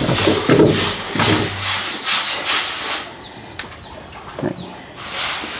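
Rhythmic gritty scraping strokes, about two or three a second, stopping for a couple of seconds in the middle and then starting again. Faint bird chirps sound in the pause.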